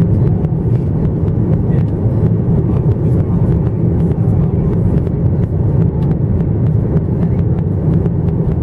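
Steady low drone inside the cabin of a Boeing 737-900ER in flight, the hum of its CFM56 turbofans mixed with airflow noise, heard from a seat over the wing.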